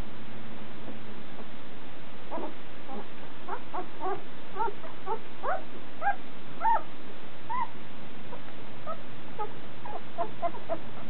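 Irish Terrier puppy, about a week and a half old, squeaking and whimpering in a string of short high calls. The calls start about two seconds in and come thickest through the middle.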